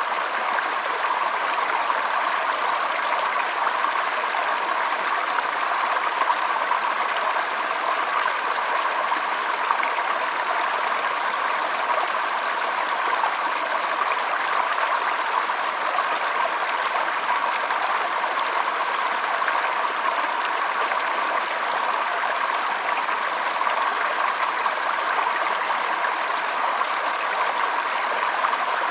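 Running water flowing steadily, like a stream, an even rushing sound with no breaks or changes.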